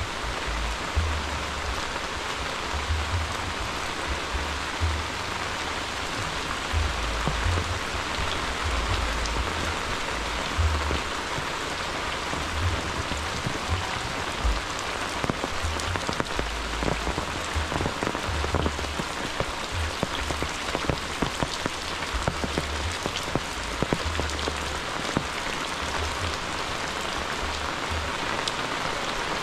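Steady rain falling, with scattered sharper drops ticking close by, more of them in the second half.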